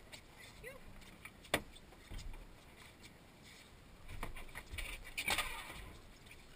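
Handling noise from scuba gear pressed against the camera. A single sharp click comes about a second and a half in, then fabric rubbing and light knocks about four to five and a half seconds in.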